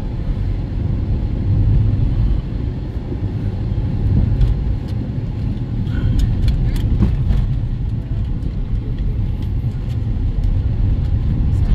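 A car driving along: a steady low rumble of engine and road noise.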